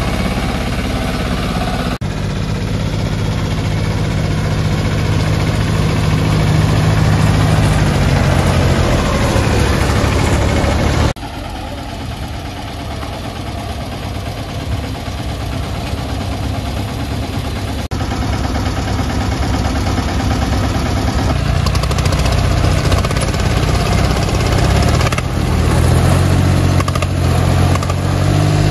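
Mini tractor diesel engines running and working hard under load, the engine tone swelling and easing. The sound changes abruptly a few times.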